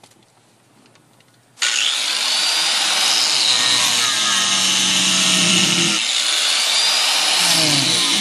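Small hand grinder starting up abruptly about a second and a half in, then cutting steadily into a minivan's sheet-steel floor pan, its high whine shifting as the wheel bites into the metal.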